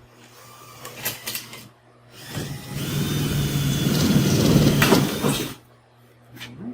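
A power drill boring a hole through a plywood panel, running under load for about three seconds and then stopping, after a few handling clicks.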